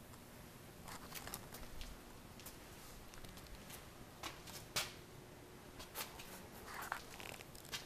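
Faint, scattered clicks and scuffs in a quiet workshop: footsteps on a concrete floor and handling noise from a handheld camera, over a low room hum.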